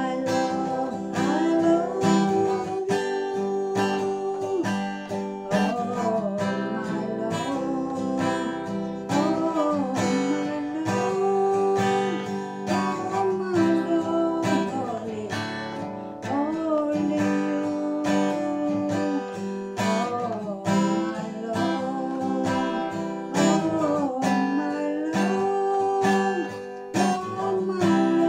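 Acoustic guitar strummed and picked under a woman singing a slow melody, with long held notes that bend and waver.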